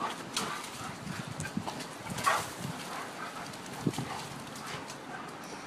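Two husky-type dogs play-fighting: irregular scuffling of paws on dirt and bodies bumping, with a sharper noise about two seconds in and a thump about four seconds in.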